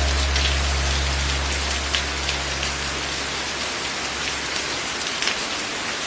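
Steady rain with scattered individual drop ticks. A low held music chord fades away in the first few seconds.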